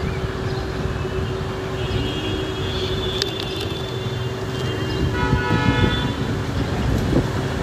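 City street traffic with vehicle horns honking: one horn held from about two to four seconds in, another sounding at about five to six seconds, over a steady hum and the rumble of passing vehicles.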